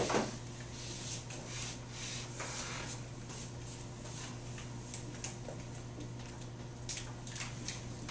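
Classroom room tone: a steady low hum with scattered faint clicks and rustles from students shifting papers and desks.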